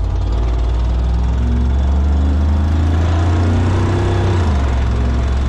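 A truck engine running steadily with a deep drone, which shifts slightly about four seconds in.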